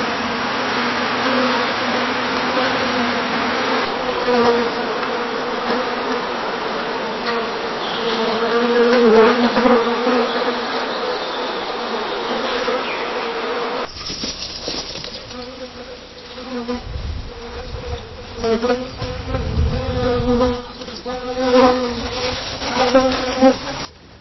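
Bee buzzing around flowers: a steady, even hum of wingbeats. About 14 seconds in it cuts to another recording where the buzz swells and fades as the bee flies close and away, with a low rumble partway through.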